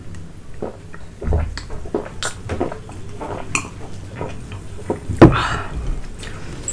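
A person eating noodles close to the microphone: chewing and wet mouth sounds with many short clicks of cutlery against a plate, and one louder noisy burst about five seconds in.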